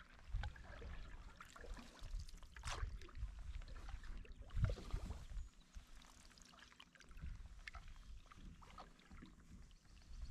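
Faint splashes and drips of a wooden canoe paddle dipping into and lifting out of calm water during forward strokes, over a low uneven rumble.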